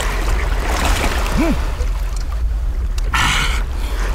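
Steady rumble of wind on the microphone and surf. About one and a half seconds in comes a short tone that rises and falls, and about three seconds in a half-second hissing burst.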